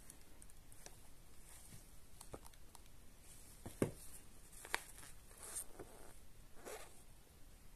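Gloved hands handling a paper instruction booklet: soft paper rustling as it is lifted and its pages turned, with two light taps about four and five seconds in.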